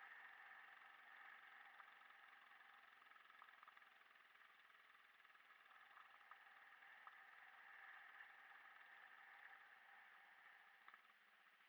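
Faint engine drone, steady and slowly fading, with a few light ticks.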